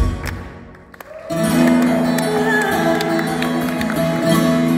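Live fado music: a loud passage with heavy bass ends and dies away, and about a second later a quieter passage of guitars starts with steady held notes.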